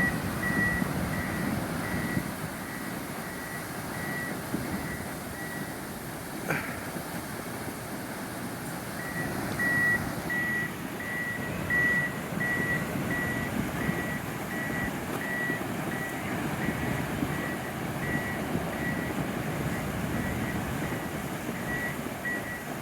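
A heavy truck's reverse alarm beeping repeatedly at one high pitch over the steady rush of floodwater. The beeping fades out for a few seconds in the middle, then comes back.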